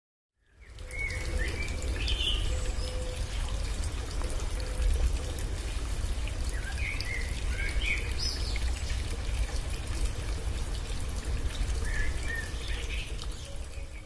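Steady rushing water of a waterfall with a deep low rumble, fading in at the start. Small birds chirp over it now and then.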